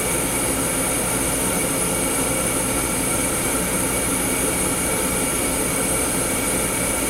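Air-acetylene flame of an Agilent 200 Series flame atomic absorption spectrometer burning steadily with the instrument running, a constant rushing noise with a few steady hums, as a sample is drawn up the sipper tube into the flame.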